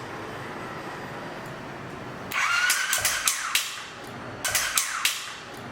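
Triumph Street Twin's 900 cc parallel-twin engine being cranked on the electric starter in two tries, the first a little over two seconds in and the second shorter about a second later, with a sharp, harsh rapid clatter from the engine and no start. The mechanic's first assessment is intake valves gummed up with varnish from stale, poor-quality fuel, so they stick and don't follow the cam.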